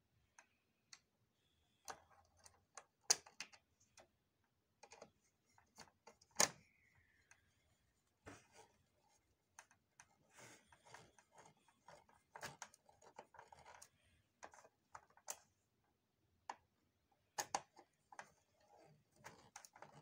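Sparse, irregular light clicks and taps of copier parts being handled, the loudest about three and six and a half seconds in.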